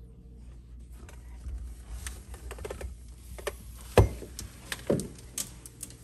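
Irregular knocks, clicks and rustles of a vacuum hose and metal wand being handled, with a loud thump about four seconds in and a smaller one a second later.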